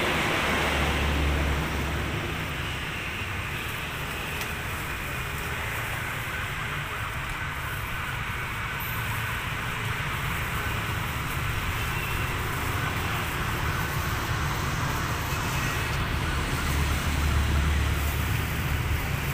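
Steady roadside traffic noise, with a low rumble about a second in and another near the end.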